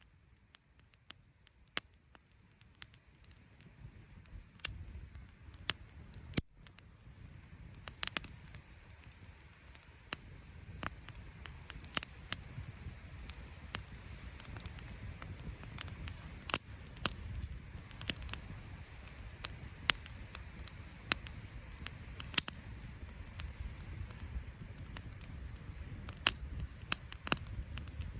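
Wood campfire crackling, with irregular sharp pops over a low rumble that builds up over the first several seconds.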